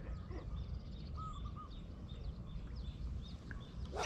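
Small birds chirping over and over in the background, with a quick three-note call about a second in, over a steady low rumble; a short sharp knock near the end.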